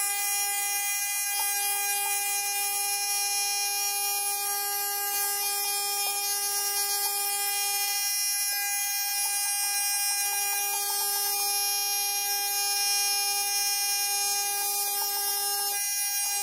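A 110-volt corded electric shaver running on a 240-volt supply, held to a beard: a steady electric buzz, its lower tone briefly dropping out three times.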